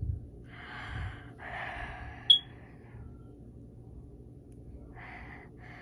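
A person breathing out heavily twice, then two shorter breaths near the end, with a brief sharp squeak about two seconds in.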